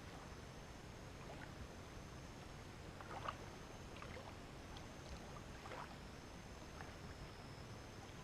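Faint water lapping with small, irregular splashes over a steady low rumble, with a faint steady high-pitched tone above.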